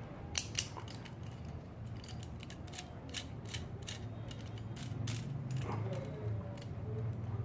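Small hard plastic and metal Beyblade Burst parts clicking and ticking irregularly as a top is handled and twisted together, with ratchet-like snaps from the layer's locking teeth.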